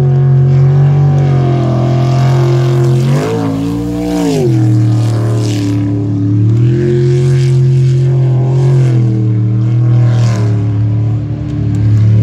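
Unlimited-class sprint boat's engine running hard at high revs around the course. The revs surge and then drop back about three to four seconds in, and step up again a few seconds later.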